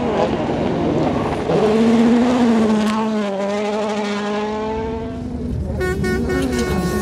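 Rally car engines running at high revs on gravel stages, the engine note held high and steady for a few seconds. About six seconds in the sound cuts abruptly to another car, whose note dips and climbs again with gear changes.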